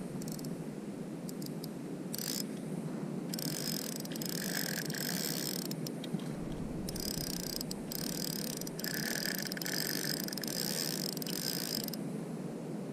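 Spinning reel's drag giving line in long buzzing runs, broken by short pauses, as a hooked fish pulls against it.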